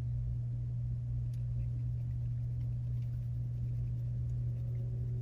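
Steady low hum of room background noise, unchanging throughout, with no other clear sound over it.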